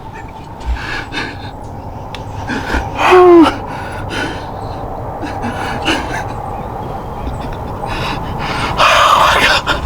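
A person breathing hard and gasping, with a short voiced groan about three seconds in and a heavy breath near the end.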